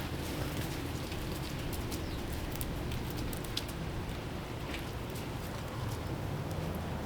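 Outdoor ambience with a steady low rumble, scattered light ticks and a few faint, brief bird chirps, about three and a half and five seconds in.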